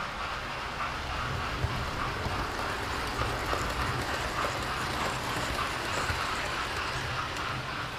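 Model railway trains running on the layout: a steady whirr and rumble of the electric motors and wheels on the track, with light clicking from the rails.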